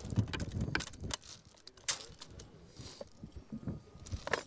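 Scattered metal clicks and clinks from an M240 machine gun being handled, its feed cover and ammunition belt worked by hand, with no shots fired. The sharpest click comes about two seconds in.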